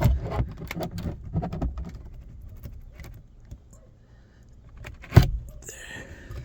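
A truck's rear-view mirror mount being twisted onto its windshield button: a run of small clicks and rattles in the first two seconds, then one sharp knock about five seconds in, followed by a short rustle.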